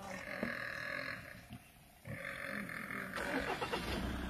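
Warthog squealing in distress while a leopard holds it down: two harsh, steady squeals of about a second each, with a short pause between them. Near the end a louder, noisier rumble comes in.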